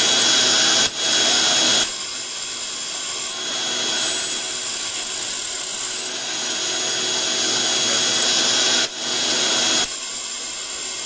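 Hardinge T42 CNC lathe running: a steady high whine over a noisy hiss. The pitch and level shift every couple of seconds, with a short drop about a second in and another near the end.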